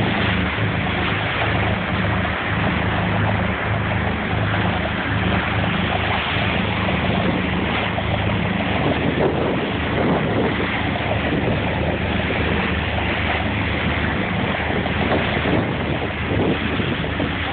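Fishing boat's engine running steadily under way, a low drone, with wind buffeting the microphone and the rush of water from the wake.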